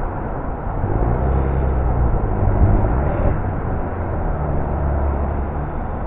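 Motor vehicle running with road and wind noise. A low, steady engine hum sets in about a second in and fades near the end.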